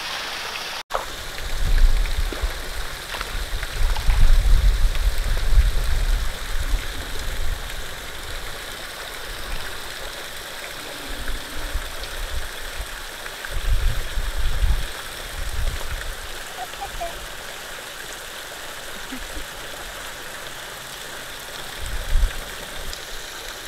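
Steady rushing of water from a small waterfall spilling into a pond, broken by a few low rumbles of wind on the microphone.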